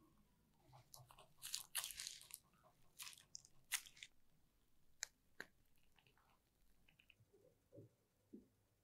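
Faint food-prep handling sounds: a plastic piping bag crinkling as it squeezes chocolate cake batter into a loaf pan, with a few sharp clicks. Near the end, a silicone spatula softly pats and smooths the batter.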